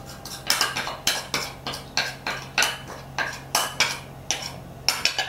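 A spoon scraping and clinking against ceramic bowls, a few short strokes a second, as thin shrimp paste is scraped out of a small bowl onto rice.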